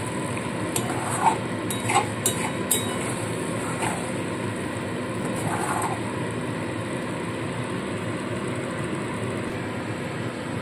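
Wooden spatula scraping and knocking against a steel kadai while thick masala paste is stirred, with a few sharp clinks in the first three seconds, then only a steady low background noise.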